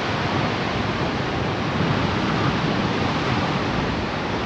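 Steady rush of wind over the microphone of a hang glider in flight.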